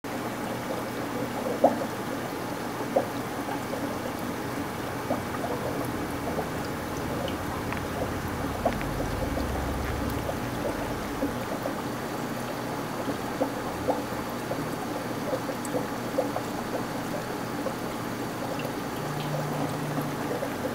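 Aquarium aeration and filter water bubbling and trickling steadily, with small pops scattered throughout.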